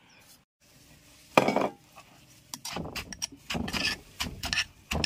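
A metal spoon and pestle knocking and scraping in a stone mortar as shredded papaya is stirred and pounded for som tam. There is a sharp knock about a second and a half in, then a busy run of clicks and thuds through the second half.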